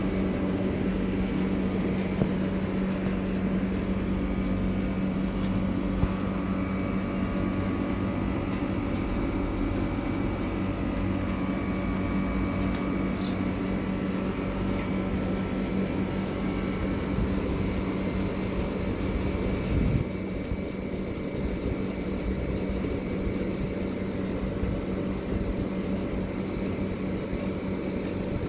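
A steady low mechanical hum with a few fainter steady overtones, stepping down slightly in level about two-thirds of the way through. Faint quick ticks run over it, several a second in the later part.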